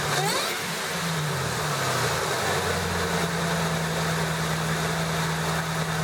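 Supercharged 5.4-litre Ford Lightning V8 running: its speed dips and rises twice in the first couple of seconds, then it settles to a steady run.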